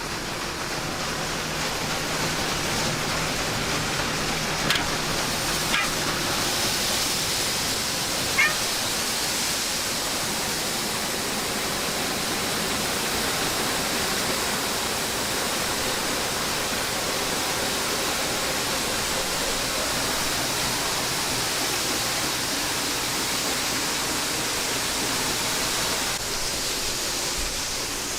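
John Deere 9660STS combine running, heard as a steady rushing hiss with a faint low hum under it. A few short squeaks come about five and eight seconds in.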